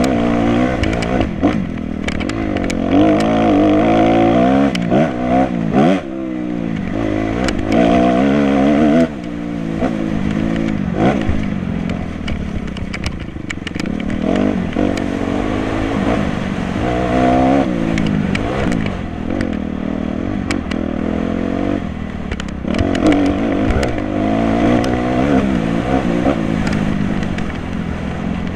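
Off-road dirt bike engine heard from on board, revving up and falling off again and again as the throttle is worked and gears shift through the trail. Scattered knocks and clatter as the bike goes over rough ground.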